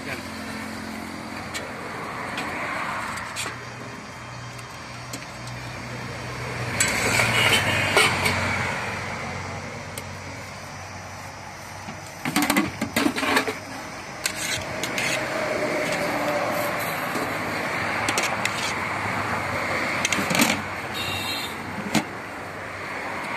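Highway traffic passing, its noise swelling and fading as vehicles go by, with a few sharp clatters about twelve seconds in and again near twenty seconds.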